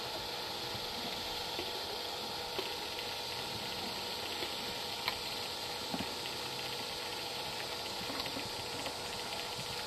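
Steady, even background hiss, with a few faint clicks scattered through it.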